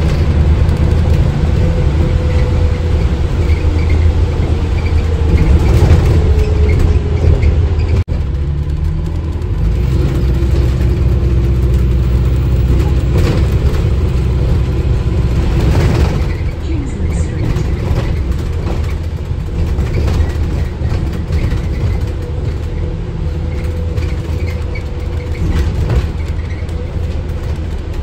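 Inside a moving Alexander Dennis Enviro400H hybrid double-decker bus: a steady low rumble from the drivetrain and road, with a faint electric motor whine that slides gently down in pitch a few seconds in.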